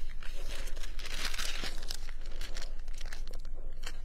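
Paper pages rustling and crinkling close to a clip-on microphone as a Bible is leafed through to find a verse, a continuous rustle with many small crackles.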